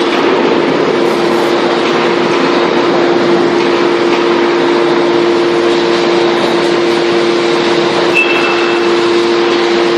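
TCM-MF315 scrap baler running steadily: a constant hum with a dense wash of machine noise over it, and a brief high squeal about eight seconds in.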